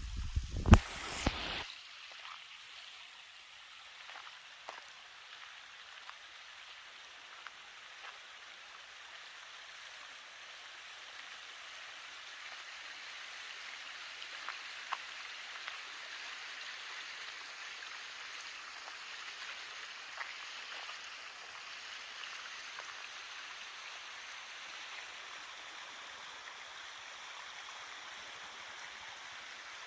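Water rushing steadily along a stone-lined irrigation canal, an even hiss that grows a little louder about a third of the way in. A short burst of low rumbling and knocks comes in the first couple of seconds.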